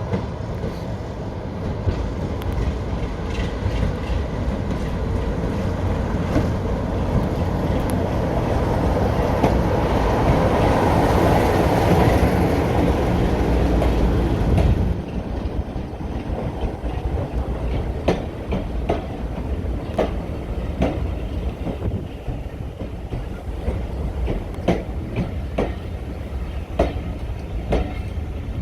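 Diesel train passing: the rumble of its engine builds to a peak and drops off sharply about halfway through. After that the wheels clatter over the rail joints in a string of sharp clicks.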